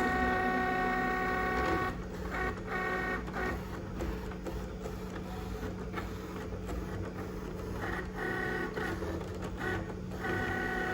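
Cricut Explore Air 2 cutting machine cutting printed photo paper. Its motors whine in runs of a second or two, broken by short stop-start bursts as the blade carriage and mat move, over a steady low hum.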